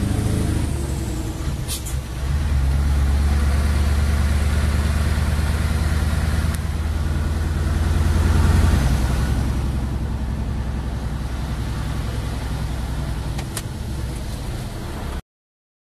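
Scania 164's V8 diesel engine pulling steadily, heard from inside the cab. It grows louder until about nine seconds in, then drops back quieter. Two light clicks, and the sound cuts off suddenly near the end.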